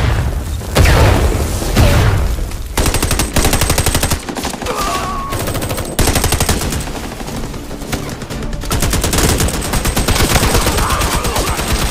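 Film gunfight: a few heavy shots, then long bursts of rapid automatic rifle fire, broken by short pauses about four and nine seconds in.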